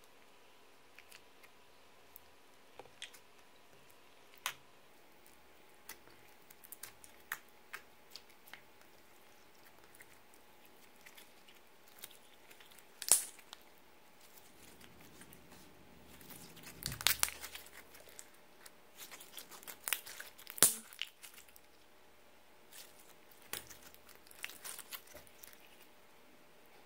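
Clear slime with glitter and green colouring mixed in, stretched and kneaded by hand: scattered sticky clicks and small pops. There is one sharp snap about halfway in, and a busier run of crackling a little later.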